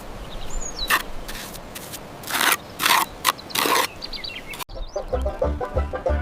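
A few short high bird chirps over a steady outdoor hiss, broken by four or five short bursts of scraping noise. About four and a half seconds in, it cuts to plucked banjo music.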